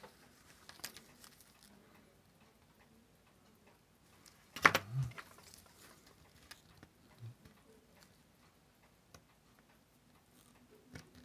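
Faint small clicks and taps of steel tweezers and tiny watch parts against a watch movement and its holder, with one sharp, louder knock a little under halfway through.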